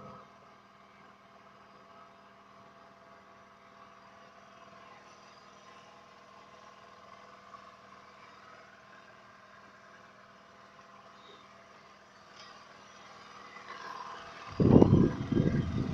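Faint, steady engine drone with a low hum. About fourteen and a half seconds in, a much louder, uneven rumbling starts.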